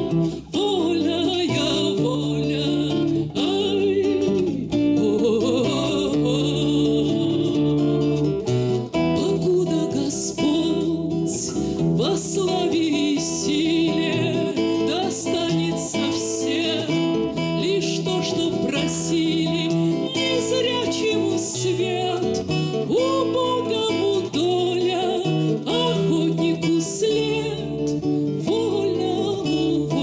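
A woman singing a bard song in Russian to her own acoustic guitar accompaniment.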